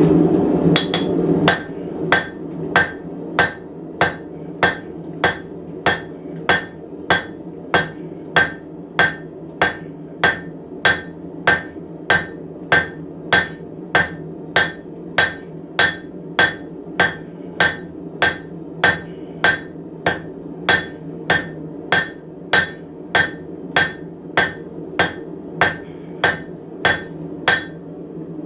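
Blacksmith's hammer striking steel bar stock on an anvil in a steady rhythm, about one and a half blows a second, each with a short metallic ring, flattening the bar while forging it.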